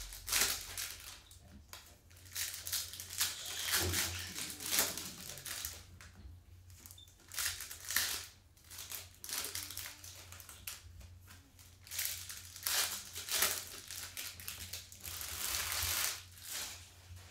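Trading card pack wrappers crinkling and tearing as they are ripped open by hand, in a series of irregular crackling bursts with short pauses between them.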